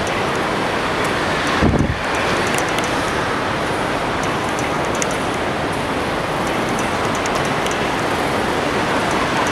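Steady noise of a large, busy airport terminal hall, with a brief low bump about two seconds in.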